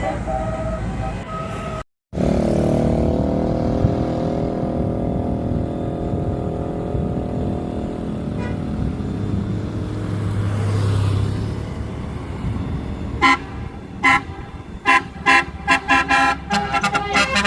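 Bus musical air horn ('telolet') sounding over a running vehicle. The horn holds a chord of several notes, and from near the end it plays a quick run of short staccato blasts that come faster and faster.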